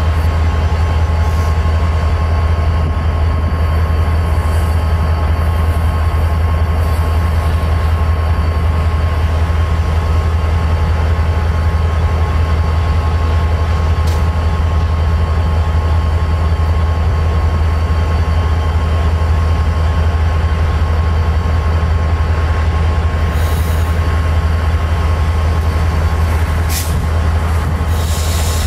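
Diesel-electric locomotives idling: a steady deep drone with a thin, unchanging whine above it.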